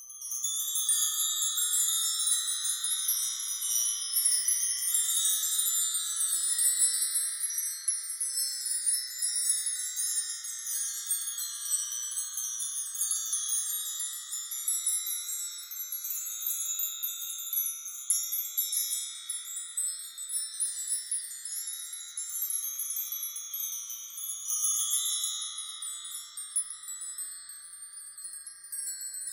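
Wind chimes tinkling continuously, many small high-pitched chimes ringing and overlapping as they strike each other.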